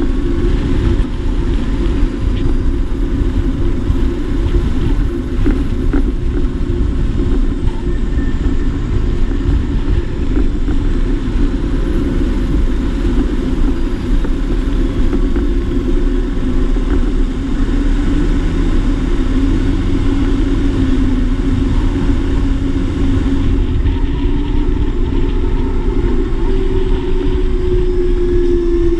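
Claas Axion 850 tractor's six-cylinder diesel engine running steadily while driving on the road, pulling a slurry tanker.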